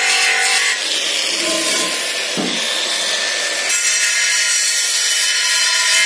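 Angle grinder with an abrasive disc running on a cast aluminium wheel rim, grinding it down to bare metal to strip the oxide film before the crack is welded. Its steady whine turns rougher and lower for about three seconds soon after the start, then returns.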